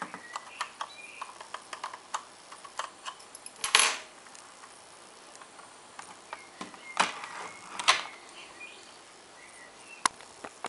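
Small plastic clicks and scrapes as the body shell of a Kato SD70MAC HO-scale model locomotive is worked onto its chassis and its clips pressed home, with a small screwdriver and fingers. Louder short scrapes come about four seconds in and twice around seven to eight seconds.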